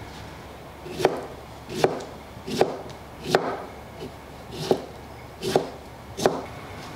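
Kitchen knife slicing a cucumber on a wooden cutting board. There are about eight sharp knocks of the blade on the board, evenly spaced at roughly one every three-quarters of a second, starting about a second in.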